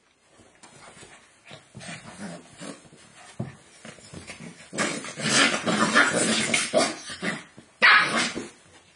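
Two Bearded Collie puppies play-fighting, yipping and barking at each other. It starts with scattered sounds, turns loud and continuous from about five seconds in, and ends with one more loud outburst near the end.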